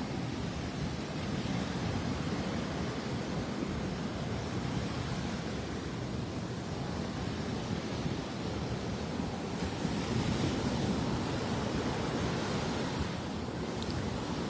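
Rough surf breaking steadily on a beach: a continuous wash of wave noise.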